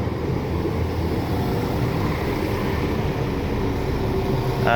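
A stopped passenger train running its engine at the platform: a steady hum over a constant rumble.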